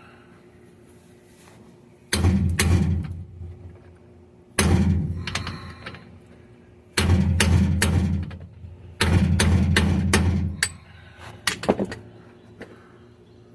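Hammer blows driving a seal into the rear differential housing of a 2002 GMC Sierra 1500. The blows come in four quick flurries of several sharp strikes each, a couple of seconds apart, then two lighter taps near the end as the seal seats.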